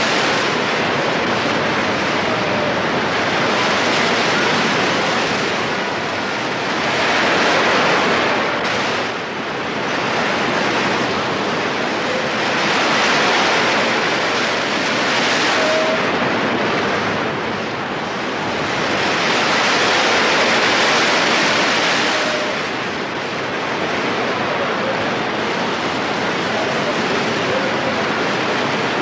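Heavy ocean surf breaking against a rocky sea cliff, a continuous rush of foaming water that swells and eases as the waves crash in. It is loudest about seven, thirteen and twenty seconds in.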